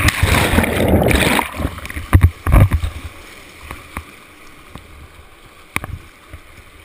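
Whitewater churning and splashing over the camera as a rafter is swept into a rapid: a loud rush of water for the first second and a half, a few heavy thumps about two seconds in, then a quieter steady wash of rapids with scattered knocks and drips as the camera rides at the surface.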